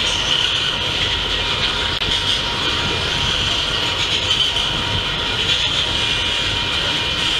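Freight train of refrigerated boxcars rolling steadily past at track side. The wheels on the rails make a constant noise with a high hissing edge.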